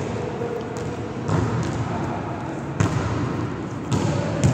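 A volleyball being hit during a rally on an indoor court: four sharp smacks, each over a second apart, heard in a large gym.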